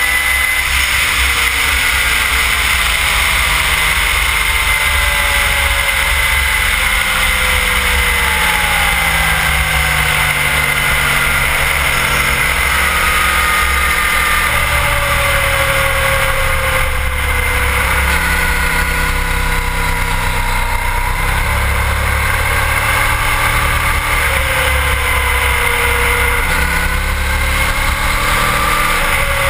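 Sport bike engine at speed on a racetrack, its pitch climbing and dropping as the rider accelerates and slows through the corners, under heavy wind rush on the bike-mounted camera's microphone.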